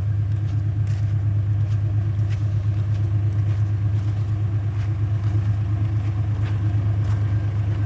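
Heavy diesel engine running steadily at idle, an even low hum with no change in speed.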